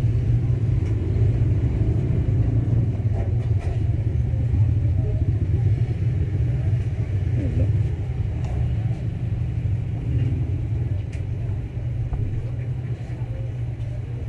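Steady low rumble throughout, with faint voices in the background.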